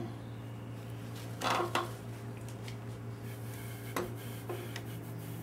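Metal engine parts being handled: a short clinking rattle about a second and a half in, then a few light knocks and clicks near four seconds, over a steady low hum.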